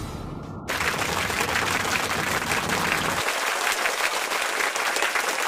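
Steady hiss of a small waterfall splashing into the pool, starting abruptly about a second in as the music cuts off.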